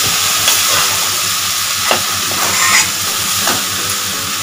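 Boiled rice sizzling as it stir-fries in a hot kadhai, a steel ladle scraping through it and clinking against the pan a few times.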